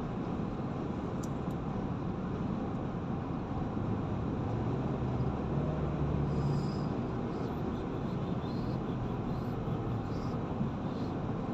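Steady road and engine noise of a car driving at speed, heard from inside the cabin, with a low hum that is a little louder around the middle.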